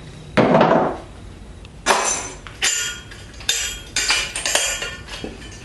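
Metal parts of a microwave magnetron being handled and pulled apart: a short scrape, then about five sharp metallic clinks and knocks.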